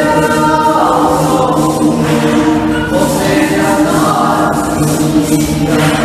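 Choir singing in harmony, several voice parts holding and moving between notes together.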